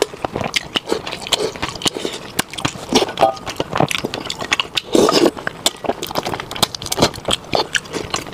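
Close-miked mouth sounds of a person eating braised soft-shell turtle: wet chewing, lip smacks and sucking slurps, with a louder slurp about five seconds in.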